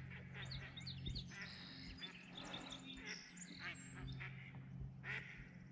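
Ducks calling: a faint scatter of short quacks and chirpy calls, over a steady low hum.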